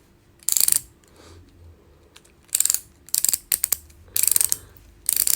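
Rotating section of a multifunctional fidget toy being turned, ratcheting in about five short bursts of rapid clicks with brief pauses between them.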